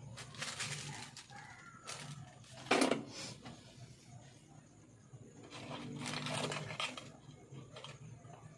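Handling noise from coils and ferrite rings being set out on a plastic-covered workbench: rustling and light clacking, with one sharp knock about three seconds in and another stretch of rustling around six seconds in.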